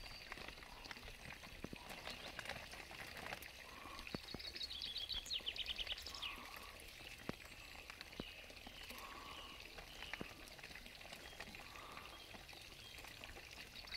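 Faint trickling and small splashes of water as carp slide out of a plastic bag into a crate of pond water, with scattered light clicks. A bird sings a rapid high trill about five seconds in.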